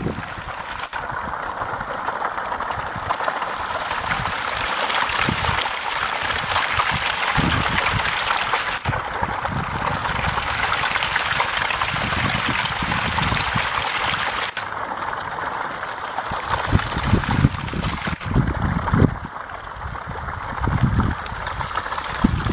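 A dense crowd of catfish thrashing in shallow water, crowding in to feed: continuous splashing and churning, with occasional low rumbles.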